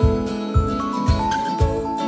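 Background music: a light melody of held notes over a steady low beat, about two beats a second.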